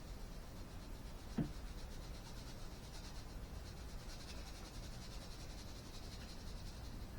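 Aquarium sand pouring from a bag onto the dirt layer of a fish tank: a soft hiss that sets in a few seconds in and runs until near the end. A short thump about a second and a half in is the loudest sound.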